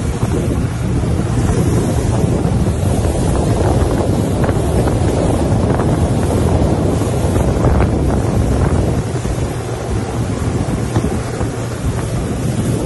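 Wind buffeting the microphone over the rush of water and the steady drone of a motorboat running at speed.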